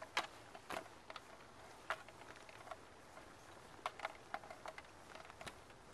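Scattered light clicks and ticks at irregular intervals from a bicycle being ridden up a steep hill.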